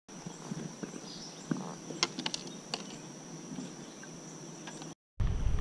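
Quiet outdoor ambience: insects trilling steadily at a high pitch, with scattered small clicks and taps. The sound drops out for a moment near the end.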